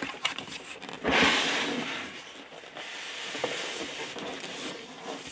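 Cardboard box being opened: a few light clicks of the flap, then a long rubbing scrape from about a second in as the foam inner box slides out of the cardboard sleeve. The scrape is loudest at first and goes on more quietly until it stops near the end.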